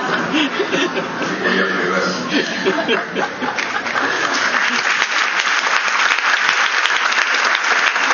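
Audience clapping, with voices and a little laughter mixed in over the first few seconds; the applause grows denser and louder from about halfway.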